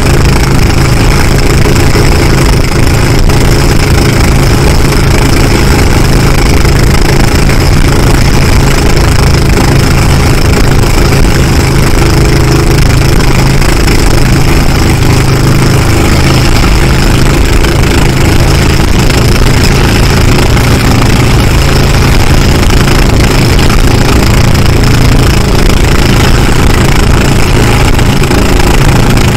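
A small boat's engine running loud and steady at constant speed, heard on board close to it. Water rushes and splashes along the hull underneath.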